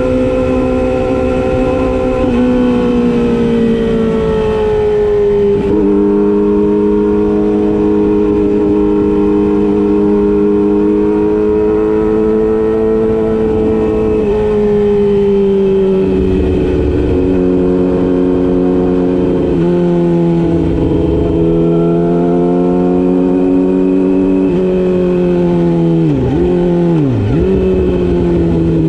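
Yamaha YZF-R6's inline-four engine running, its pitch holding fairly steady with slow sags and several small steps. Near the end the revs dip sharply twice and come straight back.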